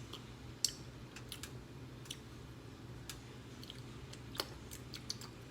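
Faint, irregular clicks and light taps at a pot of simmering chicken, with one sharper tap about four seconds in, over a low steady hum.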